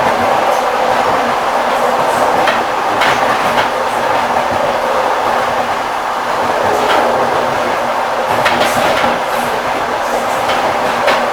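Railway carriage wheels running over the rails: a steady rolling rumble with the clickety-clack of the wheels knocking at the rail joints, sharp clicks coming irregularly, in clusters, rather than on an even beat.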